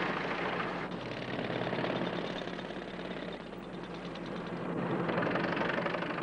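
Combine harvester engine running steadily.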